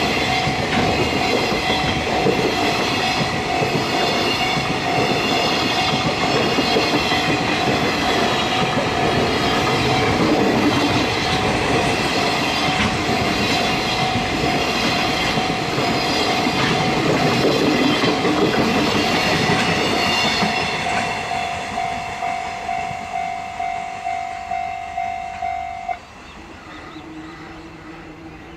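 Freight wagons rumbling and clacking over the rails past a level crossing, with the crossing's warning bell ringing through it. The train noise fades about twenty seconds in, leaving the crossing bell ringing about twice a second until it cuts off suddenly near the end.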